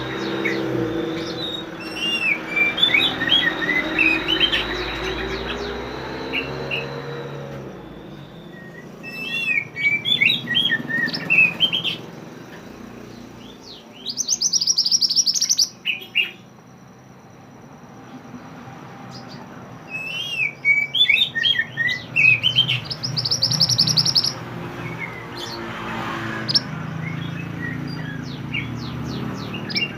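Mantenan songbird singing in bouts of quick, rising and falling chirps, broken by a few very fast, high rattling trills and short pauses of a few seconds.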